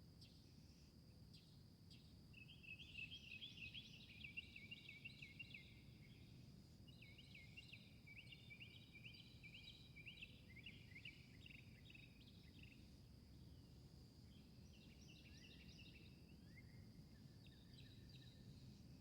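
Faint songbird twittering in quick chirping phrases, in two long runs with a short break between them, over a steady high thin insect-like drone and a low outdoor rumble.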